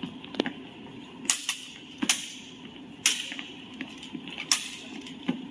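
Longswords clashing during a bout: a series of sharp, irregular clacks, several coming in quick pairs, over a steady hum of the hall.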